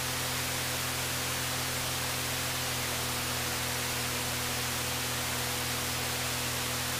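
Steady hiss with a low electrical hum under it, from an audio cassette playing back a blank stretch of tape.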